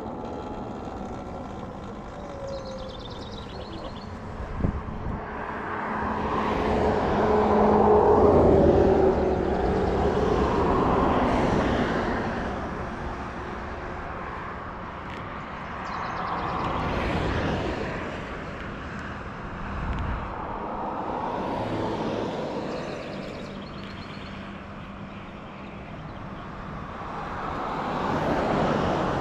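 Talaria Sting R MX4 electric dirt bike being ridden: motor whine mixed with a wind and tyre rush that rises and falls several times as it speeds up and eases off, loudest about eight seconds in. A sharp knock comes a little before five seconds in.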